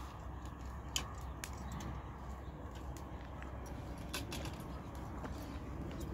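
Wood fire crackling in an open earthen hearth under a frying pan, with scattered sharp pops and clicks over a steady low background; the loudest pops come about a second in and again around four seconds in.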